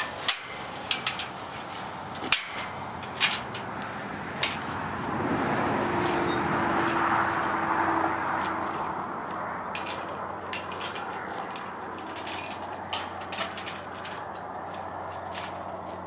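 Metal pipe farm gate clanking and rattling as it is handled, with several sharp knocks in the first few seconds. A rushing sound with a low hum swells and fades in the middle, and later come scattered soft snaps of a horse tearing grass.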